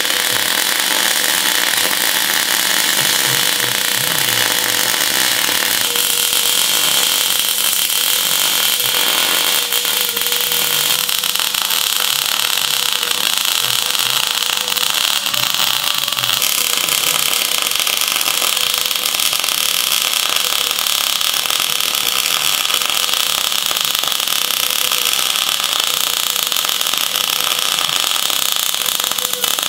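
MIG welder arc crackling and sizzling steadily while a steel bracket is welded on, its tone shifting abruptly a few times.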